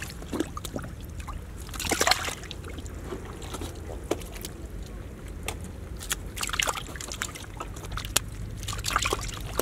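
Muddy water trickling and sloshing into a mud-walled hole trap, with irregular splashes as fish thrash in the shallow water, the loudest about two seconds in, around the middle and near the end.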